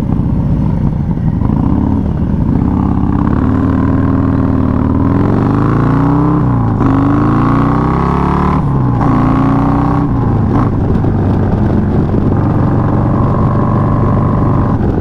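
Custom Harley-Davidson Low Rider S with a 131-cubic-inch V-twin and S&S Super Street 2-into-1 race exhaust, ridden hard through the gears. The engine note rises and drops several times, most of them in the middle of the stretch.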